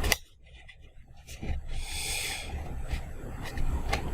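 Paper being handled and rubbed as flaps of a folded paper model are pressed together: a click at the start, then a short rustle about two seconds in, with light clicks and handling bumps.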